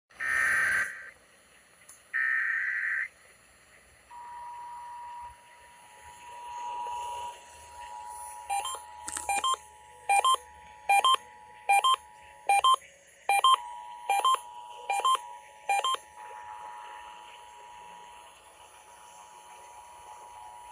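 Emergency Alert System monthly test heard over a broadcast radio: two short bursts of data tones, then the two-tone attention signal, a steady dual-pitched tone that holds for most of the clip. From about eight seconds in, a run of about ten sharp electronic beeps, each under a second apart, sounds over it for some seven seconds and is the loudest sound.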